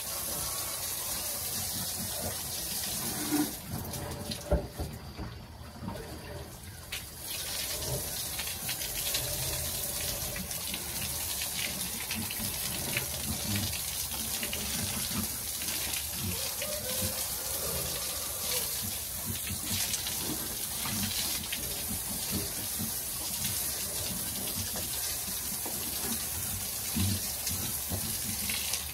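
Garden hose spraying water onto the concrete floor and walls of a pigsty as it is washed out: a steady hiss and splash that eases off briefly about four to seven seconds in.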